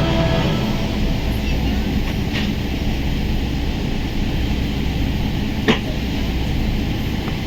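Steady rumble and hiss of a Boeing 777-300 airliner cabin with the engines running, with a single sharp click about five and a half seconds in.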